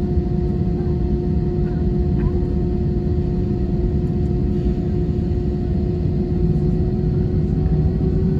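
Airbus A320 cabin noise with the engines running: a steady low rumble and a constant hum, holding level without rising.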